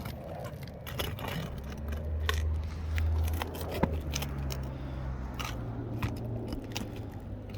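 Roof snake shingle remover being worked under asphalt shingles: scattered scraping and crackling clicks as the seal strips break and the nails are pried loose. A low hum of a vehicle engine runs underneath, swelling about two to four seconds in.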